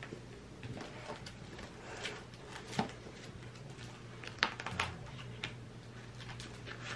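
Small handling noises of sticker sheets and planner pages: scattered soft rustles and light clicks, two sharper ones about three and four and a half seconds in, over a faint steady low hum.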